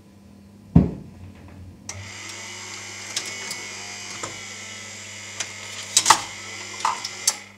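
Wurlitzer Atlanta jukebox's record-changing mechanism going through its cycle after the song ends: a loud thump about a second in, then the changer motor whirring steadily with a series of clicks and clunks as the tone arm lifts and the 45 is taken off the turntable back into the carousel magazine. A low hum runs underneath.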